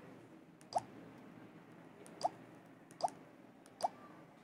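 Four button presses on a Nokia 105 feature phone's keypad, each a short click with a brief, slightly rising chirp, about a second apart.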